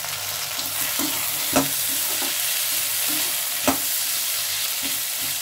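Green peas and onions sizzling in hot oil in a metal kadhai while a perforated metal ladle stirs them, the ladle knocking sharply against the pan twice.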